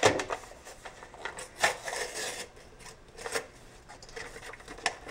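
Kitchen handling noises: a few short rustles and scrapes with light clicks, as a seasoning packet and utensils are handled at the counter.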